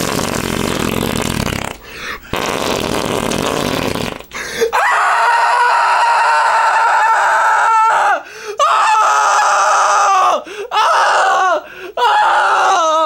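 A long, rough fart lasting about four and a half seconds. It is followed by a loud, high-pitched squealing sound held in long stretches, broken three or four times, each stretch ending with a falling pitch.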